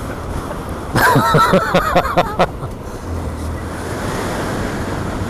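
Wind noise rushing over the microphone and road and engine noise from a Honda Monkey 125 riding along at speed. A steady low engine hum comes up about three seconds in.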